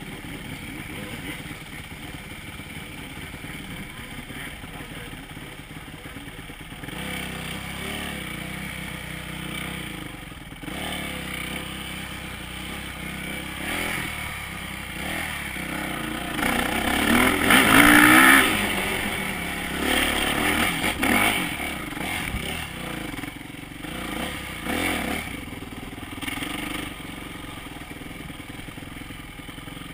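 Dirt bike engine running under a rider on a trail, revving up and down, with a rising rev about halfway through that is the loudest part, then settling back to a steadier lower run near the end.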